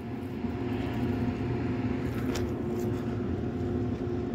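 Steady low mechanical hum and rumble holding one constant pitch, like machinery running.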